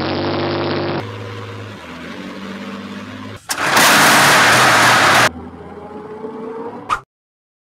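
Several short clips of big V12 tank engines fitted in cars, cut one after another: engines running with a deep steady note, and loudest, about halfway through, a harsh rough noise from a V12 diesel running in an old Volvo amid white smoke. The sound cuts off suddenly about seven seconds in.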